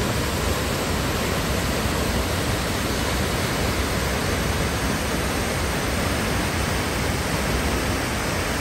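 Waterfall plunging into a rock-walled canyon pool: a steady, loud rush of falling water that cuts in and out abruptly.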